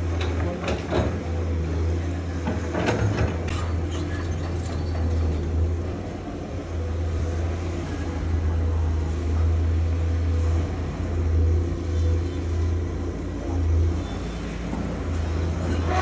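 Heavy diesel construction machinery running steadily under load, a deep engine drone, with a few metallic clanks in the first few seconds.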